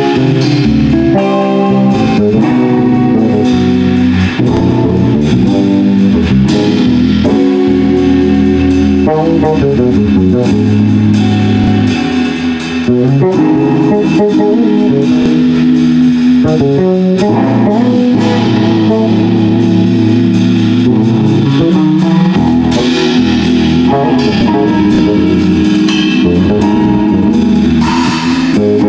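Jazz band playing live: electric guitar to the fore over bass guitar and drum kit.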